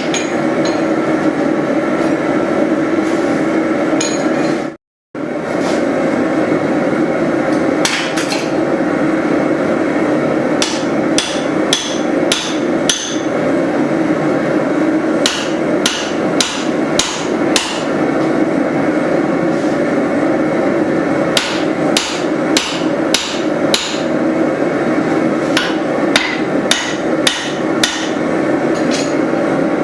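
Hammer blows on a steel drift driven through the eye of a hot forged hatchet head, struck in bursts of several blows with short pauses, over a steady background roar. The sound cuts out briefly about five seconds in.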